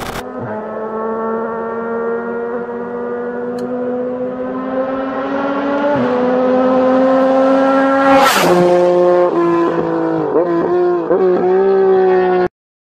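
Yamaha MT-09 (FZ-09) three-cylinder engine through an aftermarket SC Project exhaust, on a motorcycle approaching at high, steady revs. The pitch rises slowly as it closes in, then drops sharply with a rush of air as it passes close by about eight seconds in. The note then wavers a few times and cuts off abruptly near the end.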